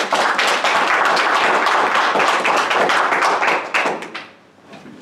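Audience applauding, a dense patter of claps that dies away about four seconds in.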